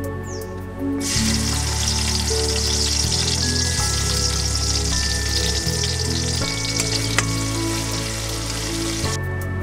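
Sliced onions hit hot oil in a black iron kadai over a wood fire and sizzle loudly from about a second in. They keep frying as a wooden spatula stirs them, and the sizzle cuts off suddenly near the end. Soft background music plays underneath.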